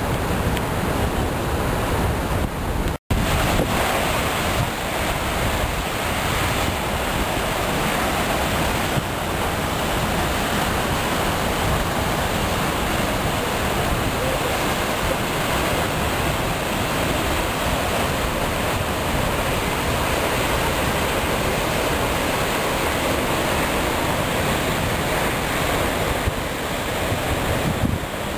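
Vernal Fall, a large waterfall, pouring onto rocks: a steady rush of falling water that cuts out for an instant about three seconds in.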